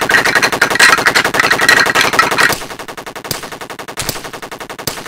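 Rapid machine-gun fire, as a film sound effect. It is loud for about the first two and a half seconds, then goes on quieter with a few single louder cracks.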